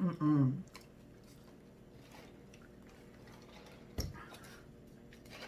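Close-up eating sounds: faint chewing and mouth smacks, with one sharp knock about four seconds in.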